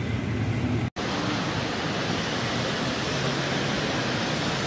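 Steady rushing hiss of noise, broken by a brief drop to silence about a second in.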